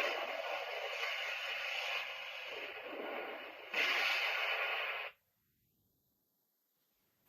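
Armor Hero Emperor transformation belt toy playing a hissing, static-like sound effect through its small speaker. It swells again near the four-second mark and cuts off suddenly about five seconds in, leaving near silence.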